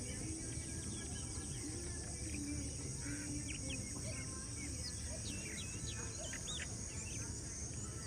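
Birds chirping and whistling in short calls, busiest in the middle, over a steady high-pitched insect drone.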